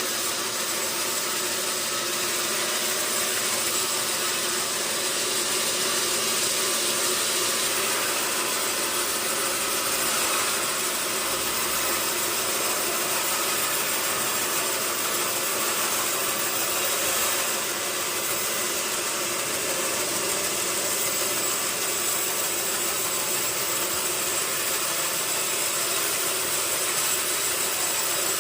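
Sawmill machinery running steadily with an even, continuous engine-like noise.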